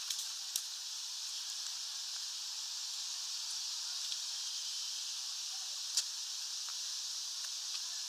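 Steady high hiss of light rain, with a few sharp taps: two soon after the start and a louder one about six seconds in.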